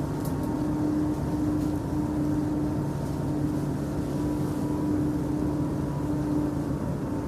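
A steady low drone with a held hum and a rumble beneath it.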